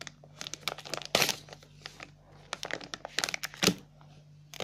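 Plastic pouch crinkling and crackling as hands pull it open, in quick irregular crackles, with a louder burst about a second in and another near the end.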